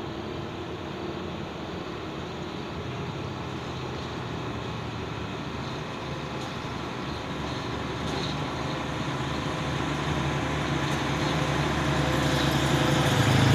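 Diesel dump truck approaching, its engine running with a steady low hum that grows steadily louder as it nears.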